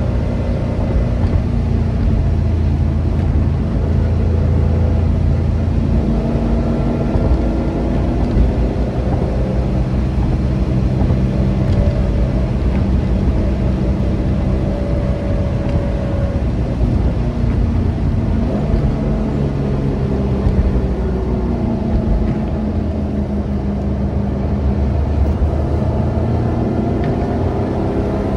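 Subaru Impreza 2.5RS's 2.5-litre flat-four engine pulling the car along a road over a steady low road rumble. The engine note rises and falls several times as the car speeds up and eases off.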